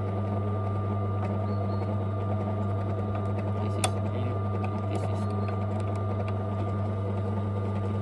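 Silca AY100 key cutting machine's electric motor running with a low, steady hum. A single sharp click comes a little before halfway.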